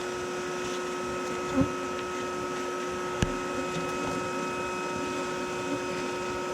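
Bee vacuum's motor running with a steady hum, as bees are sucked out of a hay baler. There is a short knock about one and a half seconds in and a sharp click about halfway through.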